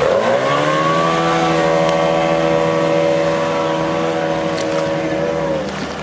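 Outboard motor of a small race powerboat running hard through whitewater rapids: its revs climb in the first second, hold at a steady high pitch, then drop near the end.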